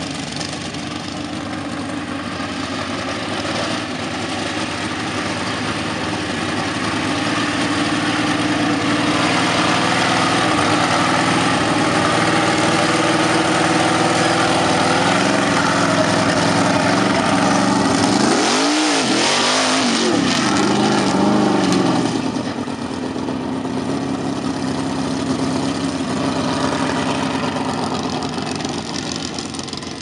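Lifted mud-bog truck's engine running hard as it drives through a mud pit, getting louder over the first several seconds. A little past the middle it revs up and back down twice in quick succession, then the sound drops off.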